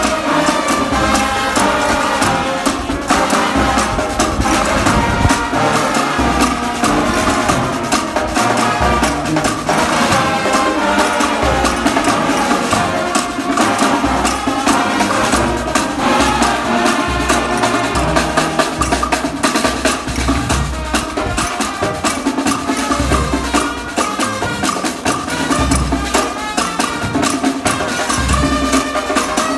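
Brass band playing a Ghanaian gospel tune: a row of trombones and other brass carrying the melody over a sousaphone bass and a steady drum beat.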